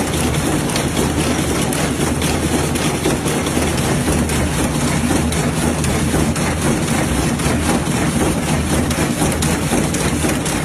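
Continuous match-making machine running: a steady low mechanical hum under dense, rapid clattering as finished matchsticks drop out of the machine's slats onto the conveyor.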